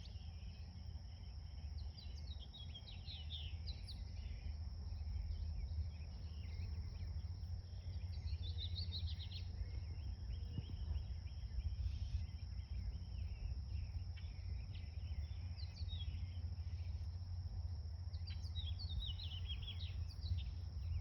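Outdoor garden ambience: a steady high-pitched insect drone with songbirds chirping in short bursts several times, over a low steady rumble.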